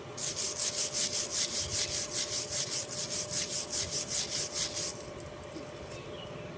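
Rapid back-and-forth scraping of a hand tool on metal, about five strokes a second, stopping abruptly about five seconds in.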